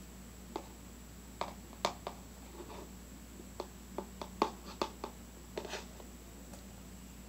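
Plastic Elmer's glue bottle being squeezed and handled over a plastic bowl: a dozen or so short, sharp clicks and crackles, most packed into the middle few seconds.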